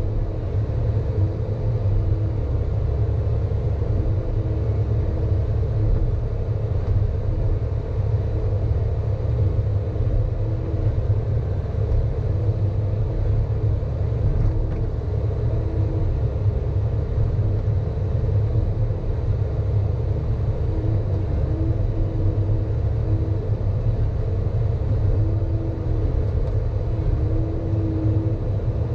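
Hydraulic excavator's diesel engine running steadily, heard from inside the operator's cab as the boom and bucket are worked: a low constant rumble with a faint whine that swells every few seconds.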